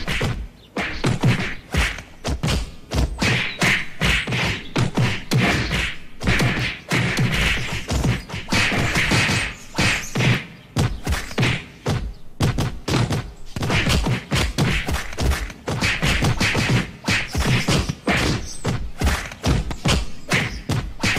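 Cartoon punch sound effects: a fast, irregular string of thuds and whacks, several a second, one fighter hitting another over and over.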